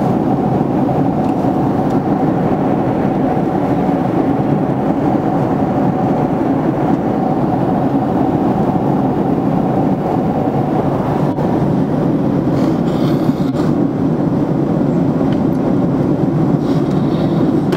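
Airliner cabin noise in flight: a loud, steady rush of jet engines and airflow. A faint steady hum rides on it and fades out about ten seconds in.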